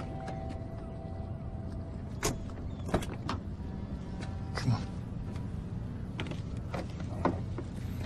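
Steady low rumble of outdoor ambience with a faint steady tone at first, broken by about seven short, sharp clicks and taps scattered through it.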